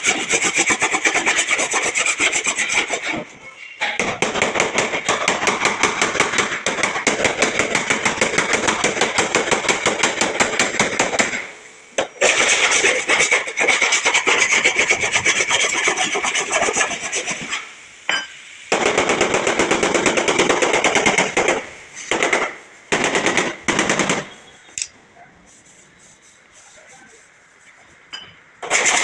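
A power tool working on the vehicle's sheet-metal body, giving a fast, harsh rasping chatter in bursts of several seconds with short breaks. It stops for a few seconds near the end and starts again at the very end.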